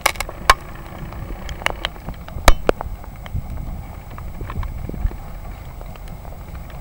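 Metre-gauge Harz steam locomotive working hard as it pulls its train away: a low rumble with irregular sharp clanks and knocks, the loudest about half a second in and again about two and a half seconds in.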